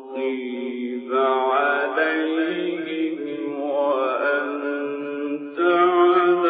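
A male Quran reciter chanting in the ornate mujawwad style, drawing out long melismatic notes that bend up and down. He pauses briefly for breath about a second in and again near the end.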